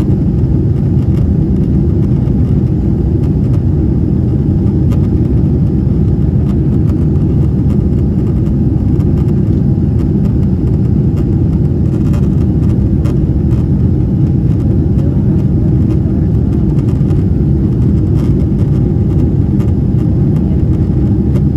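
Steady low roar inside the cabin of a Boeing 777-300ER climbing out after takeoff, from its GE90-115B engines at climb thrust and the air rushing past the fuselage.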